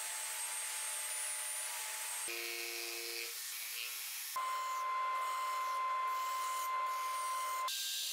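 Power tools cutting and drilling plywood in quick succession, each sound changing abruptly: a table saw, then a cordless jigsaw, then a drill press. Each runs with a steady whine.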